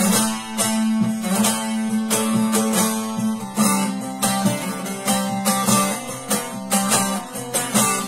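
Bağlama (long-necked saz) played solo in an instrumental passage between sung verses: quick picked melody notes over a steady low drone from the ringing strings.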